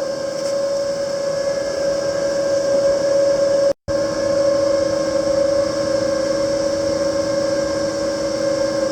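Panasonic YD-350GR3 semi-automatic welder running: a steady electrical hum with several fixed tones over even fan noise. The sound cuts out completely for a moment nearly four seconds in, then resumes unchanged.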